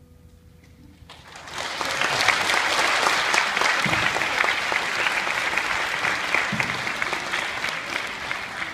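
Audience applauding. The clapping starts about a second in, just as the last held note of the song fades out, and it tapers off near the end.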